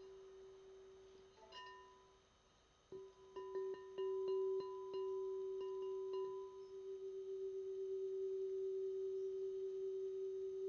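Singing bowl ringing with one steady tone. It fades about two seconds in, a run of taps between three and six seconds in brings it back louder, and then it holds a steady ring with a slow regular wobble.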